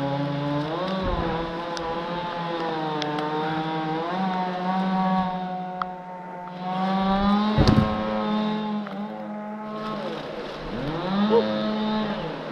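Two-stroke chainsaw running at high revs, its pitch sagging and recovering as it cuts under load. A loud thud comes a little past halfway.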